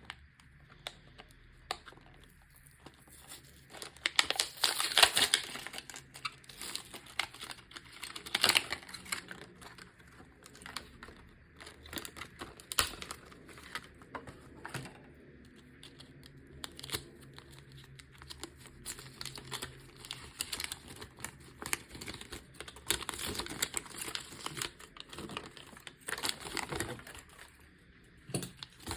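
Toy packaging being handled and opened by hand: crinkling and tearing with many small clicks and taps, loudest in a burst about four to six seconds in and again briefly near nine seconds.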